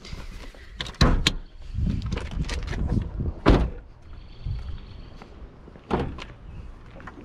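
Car door of a 2005 Chevrolet Trailblazer being opened and shut, with a series of sharp clunks, the loudest about three and a half seconds in, and rustling handling noise in between.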